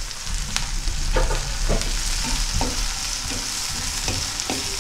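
Chopped tomatoes and onions sizzling in hot oil in a nonstick frying pan, stirred with a wooden spatula that knocks and scrapes against the pan every half second or so.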